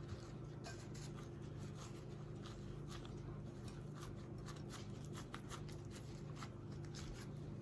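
Faint rustling and patting of hands in thin plastic food-prep gloves, pressing and smoothing a salmon loaf mixture in a ceramic baking dish, with scattered soft ticks over a low, steady hum.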